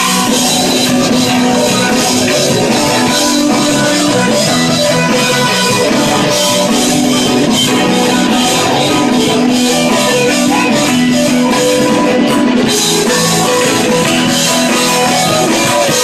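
Live rock-and-roll band playing loudly without vocals: strummed acoustic guitar over a drum kit keeping a steady beat.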